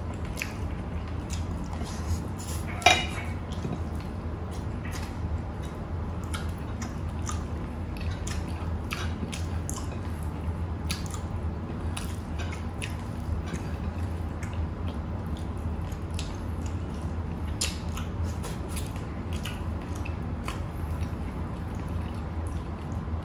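Close-miked eating by hand: short scattered clicks of chewing and of fingers picking food off plates, over a steady low hum, with one sharper click about three seconds in.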